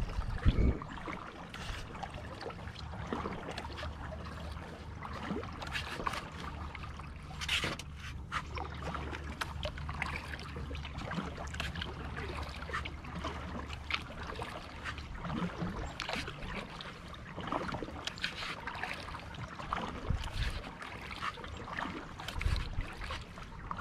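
Kayak paddle dipping and splashing in calm river water in an uneven stroke rhythm, with drips and trickles off the blade and scattered light knocks.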